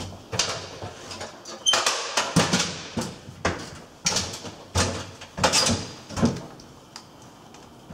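A string of irregular knocks, scrapes and rustles as a person steps up onto a metal stepladder and handles a tester's test leads. It goes quieter near the end.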